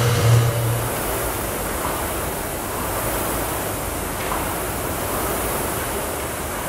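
Steady rushing noise, typical of the air-resistance flywheels of rowing machines in use. A heavy musical bass fades out about a second in.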